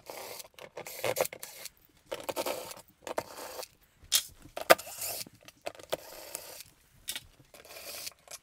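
Makita cordless drill-driver backing screws out of metal shelf brackets in several short bursts, with a couple of sharp clicks about four to five seconds in.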